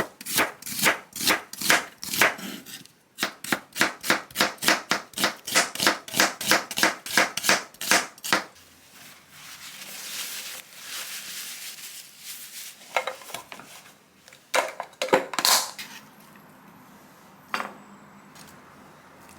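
Knife chopping on a cutting board in quick, even strokes, about four a second, with a short break, stopping about eight seconds in. A soft scraping hiss and a few scattered knocks follow.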